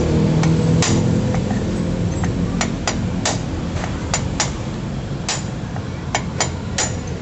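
A steel rod, used as a drift, knocking down through the hollow boss of a Honda Vario CVT pulley to drive out its bearing. It makes a series of sharp metallic taps with a brief ring, irregular at about two a second.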